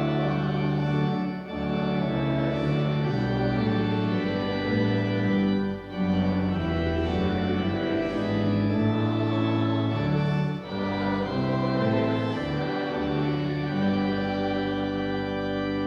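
Church organ playing a hymn tune in held chords over a moving bass line.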